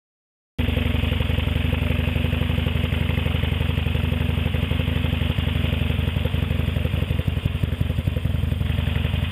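Harley-Davidson Sportster Forty-Eight's air-cooled 1200 cc V-twin running steadily as the bike pulls away and rides down the street at low speed. The sound cuts in abruptly about half a second in.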